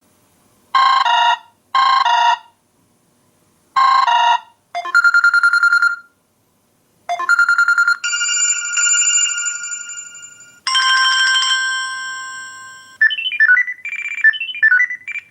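Samsung Galaxy S2 ringtones playing through the phone's speaker: three short electronic double rings, two trilling tones, then a long chime chord that fades, a second held chord, and a quick run of melodic notes near the end.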